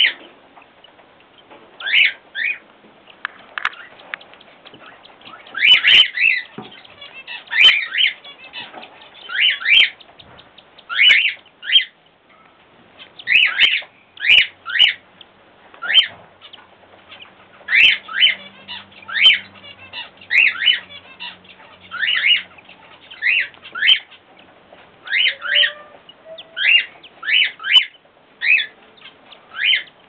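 Cockatiel chicks begging for food as the adults feed them: short, rising, rasping calls in twos and threes, repeating about once a second.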